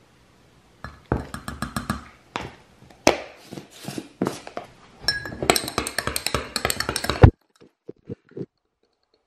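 Clinking and rattling from a greens powder drink being mixed. It comes in several runs of quick clinks, the longest and fastest lasting about two seconds near the end before it stops abruptly, followed by a few faint knocks.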